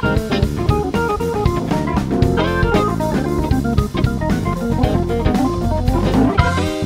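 Live instrumental band music: a KeyB Duo Hammond-style organ, guitar, bass guitar and drum kit playing together in a busy passage of quick, many-note lines over a steady low bass and drums.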